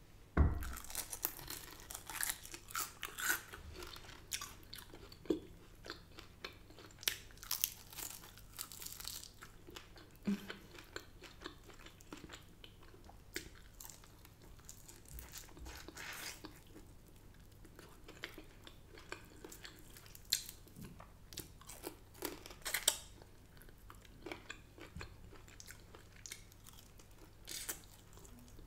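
Biting into and chewing crispy oven-cooked chicken wings: irregular crunches, bunched in the first ten seconds or so and again around two-thirds of the way through, with quieter chewing in between.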